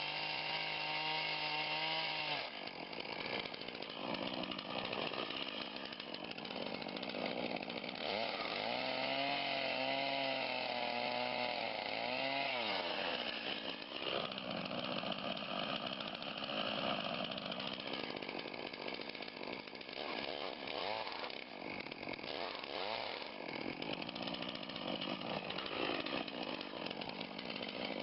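Two-stroke chainsaw cutting into a large beech trunk, running under load throughout, its engine pitch wavering up and down as the chain bites, most clearly near the start and again around the middle.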